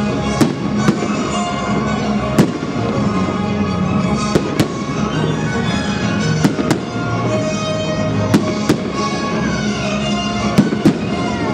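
Fireworks bursting over music: sharp bangs every couple of seconds, often in pairs a fraction of a second apart.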